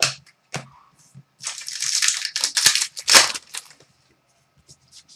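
Trading cards being handled: a few short clicks, then about two seconds of rustling and scraping as cards slide and shuffle, with one sharper crack in the middle.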